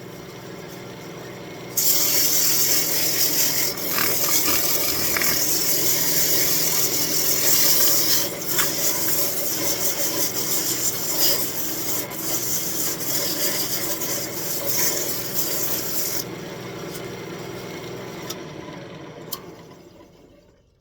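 320-grit sandpaper rubbing on an elm spoon blank spinning on a wood lathe: a loud sanding hiss that starts about two seconds in and eases off around sixteen seconds, over the lathe's steady hum. The sound fades out near the end.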